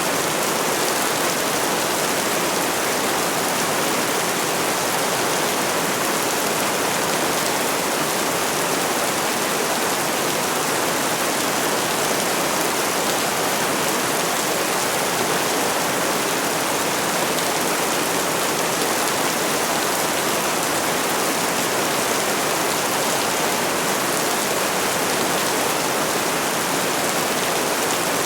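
Heavy rain falling steadily, a dense even hiss of many drops with no distinct strikes or thunder.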